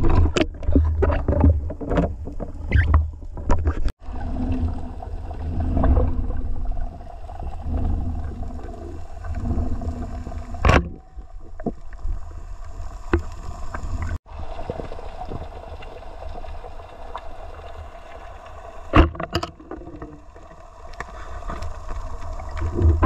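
Muffled underwater sound picked up through a waterproof camera housing while spearfishing: a steady low rumble of moving water, with scattered sharp clicks and knocks against the housing and spear.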